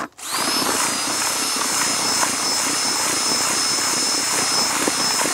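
Cordless drill-driver stirring dry corn-based feeder groundbait: a steady high motor whine over the rushing of the crumbly mix. It spins up at the start and cuts off suddenly at the end.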